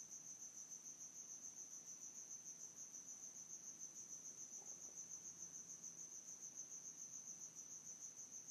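Cricket chirping: a faint, high, steady trill pulsing evenly several times a second.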